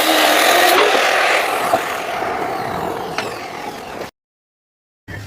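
Loud mechanical running noise, a dense steady roar that fades and seems to wind down over about three seconds, then cuts off abruptly to silence about four seconds in.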